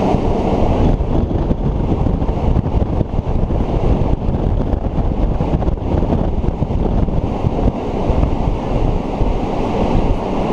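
Steady, loud wind rushing over the microphone at the open window of a moving train, with the rumble of the train running beneath it.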